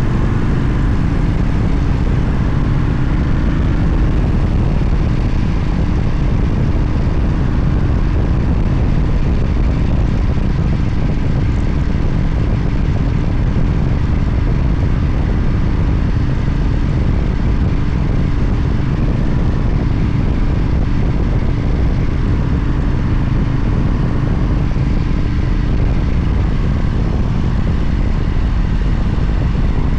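Motorcycle cruising at a steady speed: engine drone mixed with heavy wind rush on the microphone, unchanging throughout.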